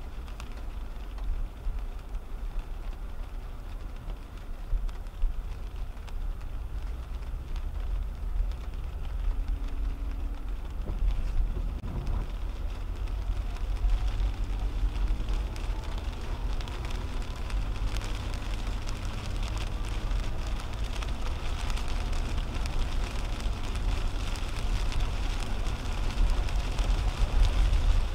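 Cabin sound of a 2010 Toyota Camry driving on a wet highway in rain: a steady low road-and-tyre rumble with the hiss of wet pavement and rain on the windshield. It grows louder as the car gathers speed on the freeway.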